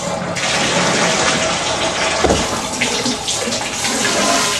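Water running and splashing down into a sink drain in a steady rush, with a brief bump about two seconds in.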